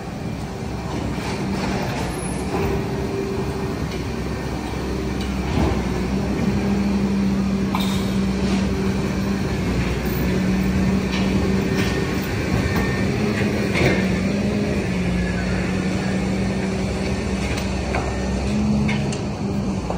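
Diesel engine of a crane lorry running steadily, a low hum that grows a little louder midway, over general street noise with a few sharp clicks.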